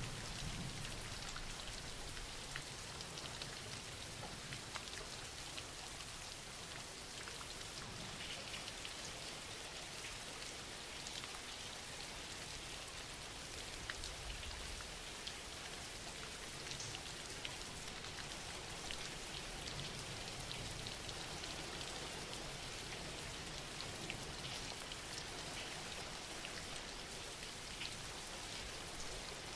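Steady rain falling: an even hiss with faint, scattered drop taps.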